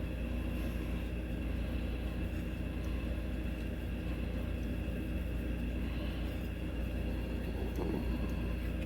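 A steady low hum with several faint, even tones above it, unchanging throughout.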